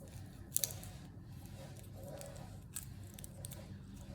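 Small toy pieces being handled and fitted together, with faint rustling and sharp little clicks: a pair of clicks about half a second in and another near three seconds. A low steady hum runs underneath.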